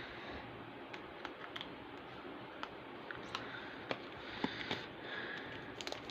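Trading cards and their plastic packaging being handled: faint scattered light clicks and soft rustles over a low steady hiss, with a small flurry of clicks near the end.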